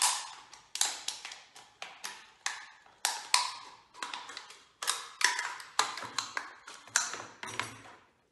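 Scissors cutting through a plastic bottle: a series of crisp, crunching snips, roughly one every half second, each ringing briefly in the hollow plastic.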